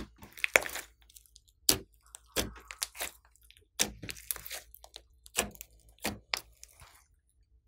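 Hand-kneaded slime mixed with foam beads, squished and pressed, giving irregular sharp pops and crackles about every half second to a second. The sounds stop near the end.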